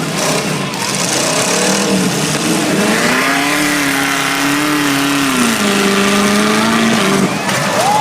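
Several demolition derby cars' engines running and revving. One climbs in pitch about three seconds in, holds, then drops back a couple of seconds later.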